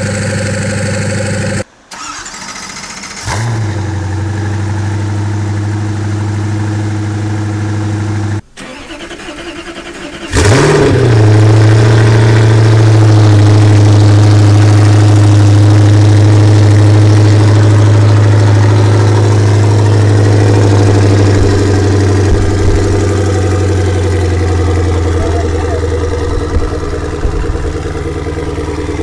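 Koenigsegg twin-turbo V8 idling. After a couple of edits, another Koenigsegg V8 is started about ten seconds in, with a brief flare. It then settles into a loud, steady fast idle that eases down a little near the end.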